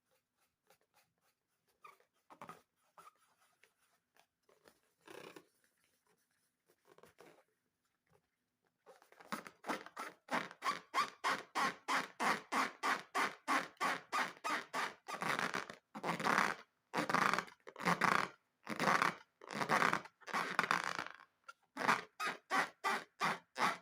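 Faint scattered clicks, then from about nine seconds in a rapid, regular run of squishy squeaks, about three or four a second, from balloons and slime being worked by hand.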